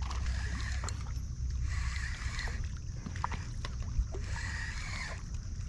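Water sloshing in swells every couple of seconds over a steady low wind rumble on the microphone, with one sharp knock about four seconds in.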